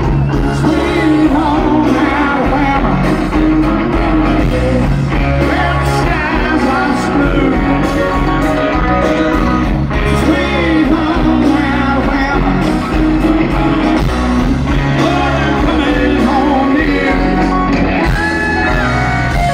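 A live band playing loud amplified music with a singer over a steady, deep bass.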